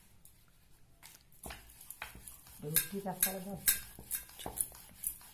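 Rolling pin working a flat round of dough on a rolling board, knocking and clacking against the board about two to three times a second, starting after about a second and a half.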